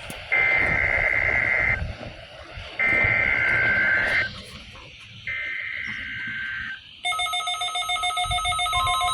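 NOAA Weather Radio SAME header for a Required Weekly Test: three identical bursts of warbling two-pitch data tones, each about a second and a half long, about a second apart, heard through the radios' speakers. About seven seconds in, several weather radio receivers start their pulsing alert beeps, and a steady tone joins near the end.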